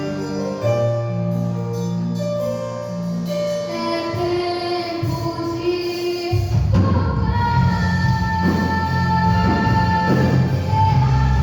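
A gospel band playing a hymn live, with long held melody notes. About six and a half seconds in, drums and bass come in and the music grows louder.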